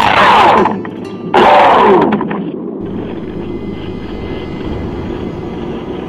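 Radio-controlled model airplane's motor and propeller heard from the onboard camera, mixed with wind rush. It surges loud twice in the first two seconds, then drops to a lower steady sound as the plane flies low over the ground.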